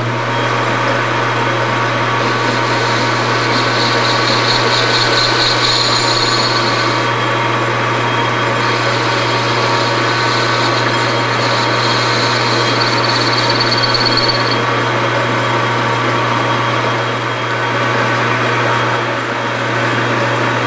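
Metal lathe running, turning a billet aluminum part: a steady motor and drive hum under the noise of the cut. A high whine from the cutting tool comes in twice and fades out. Near the end a hand file is held against the spinning part to break its sharp edges.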